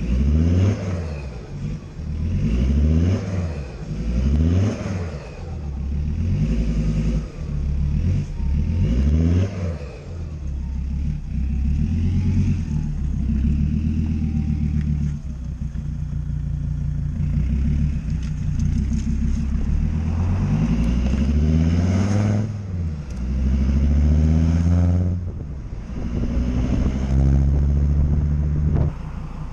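Volvo 2.4 D5 five-cylinder turbo-diesel running through a custom straight-through stainless steel exhaust, revved again and again, its pitch rising and falling with each rev. There are about five quick revs in the first ten seconds, a steadier stretch in the middle, and more rises and falls near the end.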